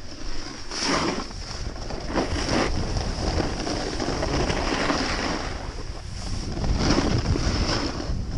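Snowboard riding down a snowy slope: the board scraping and hissing over the snow, swelling with each turn, with wind buffeting the microphone.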